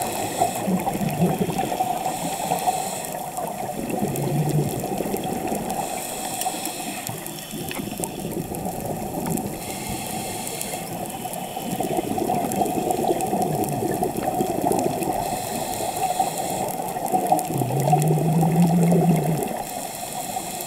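Underwater sound of a scuba diver breathing through a regulator: a hiss with each inhale roughly every four seconds, and exhaled bubbles gurgling in between.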